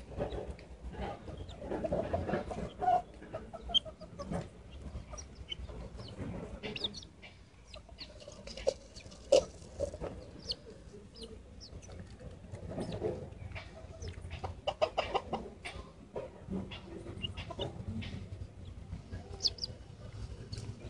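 Young wild chickens clucking softly on and off while they peck rice grains, mixed with short sharp taps of their beaks pecking.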